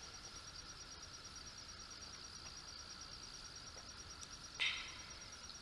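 Insects trilling steadily, a high, rapidly pulsing drone. About four and a half seconds in, one brief louder sound cuts across it.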